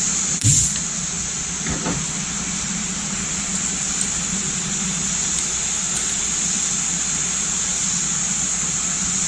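Steady machine noise, a low hum with a strong high hiss, with one short sharp snap about half a second in.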